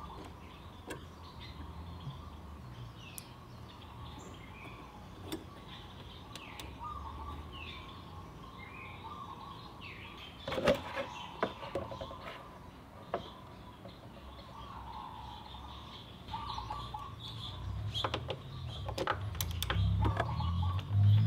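Small birds chirping in the background, with scattered sharp metallic clicks from a ratchet and socket being worked on the scooter's underside bolts. A low rumble builds near the end.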